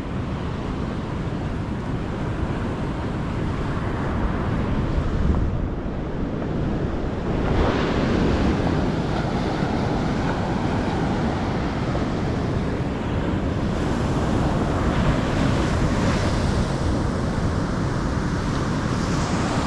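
Heavy surf breaking and washing up a beach, a steady roar that swells about eight seconds in, with wind buffeting the microphone.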